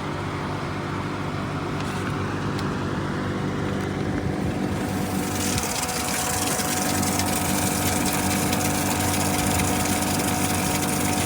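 GE Profile ClearView inverter window air conditioner running: a steady machine hum with an air rush that grows louder about halfway through.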